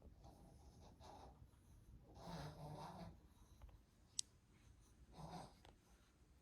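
Mostly near silence, with two faint, low grumbling vocal sounds from a Shih Tzu dog, one about two seconds in lasting under a second and a shorter one about five seconds in. A single sharp click comes just past four seconds.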